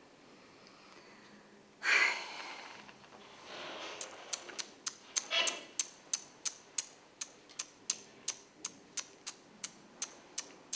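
A short, sharp exhale about two seconds in. From about four seconds, a run of light, sharp clicks goes on at roughly three a second, slightly uneven.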